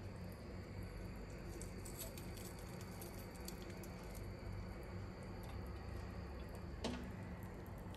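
Faint kitchen noise: a steady low hum with soft, scattered ticks, and one light click about seven seconds in.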